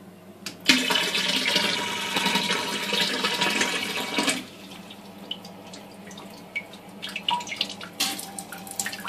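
National electric bidet toilet seat's washing nozzle spraying water into the bowl: a loud hiss starts just under a second in and eases off after about four seconds. Near the end the jet spatters against a glass container held over the bowl.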